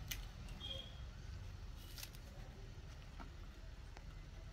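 Quiet room tone with a low hum and a few faint clicks.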